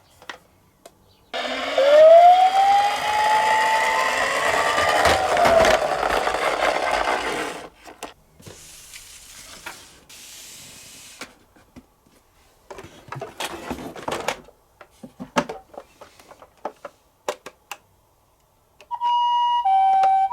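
Toy police car's electronic siren wailing, rising and then falling once over a loud hiss, followed by a scatter of small plastic clicks and knocks. Near the end a two-tone alternating ambulance siren from the toy ambulance starts up.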